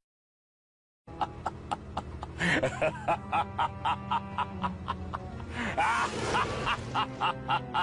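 Silence for about a second, then background music with a quick, steady beat.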